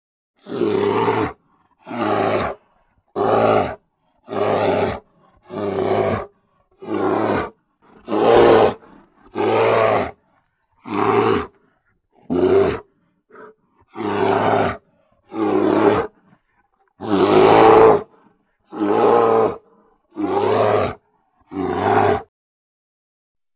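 Grizzly bear roars and growls played one after another as separate sound-effect clips, about sixteen short calls, each under a second or so, with clean silence between them.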